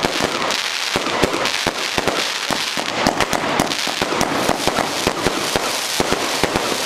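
Fireworks going off in rapid succession: a dense run of sharp bangs, several a second, over a steady crackle.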